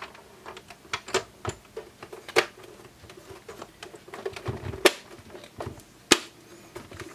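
Irregular clicks and knocks of the plastic rear case of a Siglent oscilloscope being handled and pressed into place, with a few sharper knocks.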